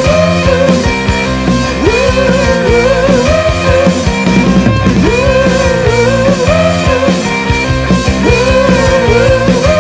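Loud rock music, an instrumental passage where a bending lead guitar melody plays over bass and drums.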